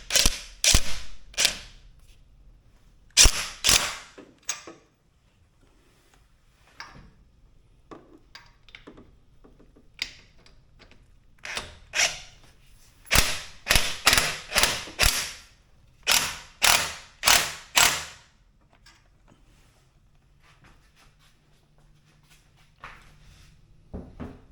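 Ratchet wrench clicking in short runs of sharp clicks with pauses between, as the fuel rail's mounting bolts are run down on a 2JZ-GTE engine.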